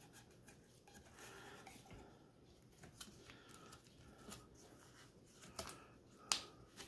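Mostly near silence with faint sticky clicks and crackles from slime being pressed and sealed around a plastic straw, the loudest a sharp click a little after six seconds in.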